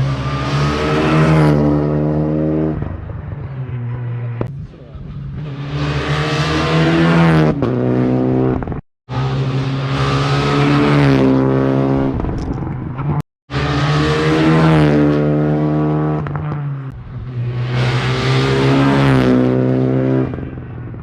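Rally cars racing past one after another at speed, each engine swelling loud and bending in pitch as the car goes by. The sound cuts off abruptly twice.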